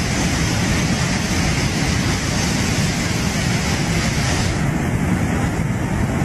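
Loud, steady rushing of a muddy flash-flood torrent. About four and a half seconds in, the sound turns duller as its highest hiss drops away.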